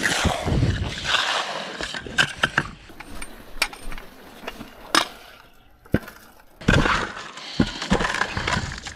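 Concrete mix being tipped and scraped out of a plastic bucket into a post hole around a wooden gate post. Two stretches of scraping and rattling, one near the start and one after about six and a half seconds, with sharp knocks and clicks between them.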